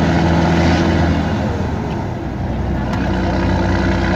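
Scania 113 truck's 11-litre straight-six diesel engine running under way, heard from inside the cab; its steady engine note breaks up about a second in and settles again later.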